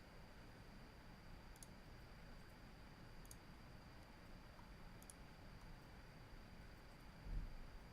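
Faint computer mouse clicks, three about a second and a half to two seconds apart, over near-silent room tone with a faint steady high whine. A soft low thump near the end.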